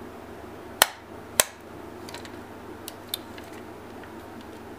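Two sharp clicks about half a second apart, a second in, then a few faint ticks, from the metal parts of a 1928 Agfa Billy Record folding camera being worked by hand.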